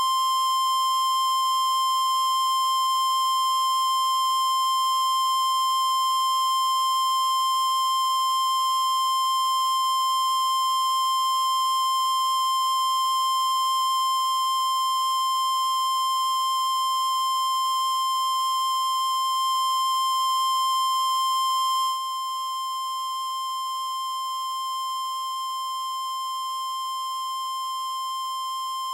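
Steady line-up test tone (the standard 1 kHz reference tone) played with colour bars at the head of a videotape. A single unchanging pitch that steps down slightly in level about 22 seconds in.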